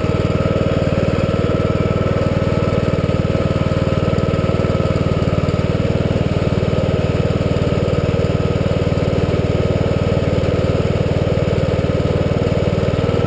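An engine running steadily at idle, an unchanging drone.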